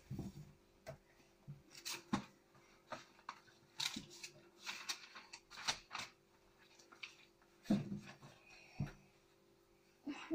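Scattered soft clicks and rustles of small things being handled, over a faint steady hum.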